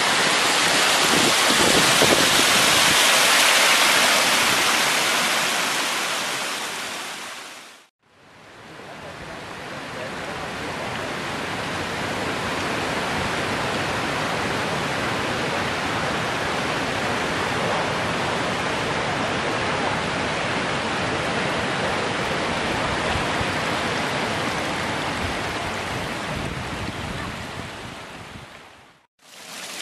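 Creek water rushing over a shallow rocky bed, a steady wash of flowing water. It fades out about eight seconds in and fades back in a little quieter, then fades out again near the end.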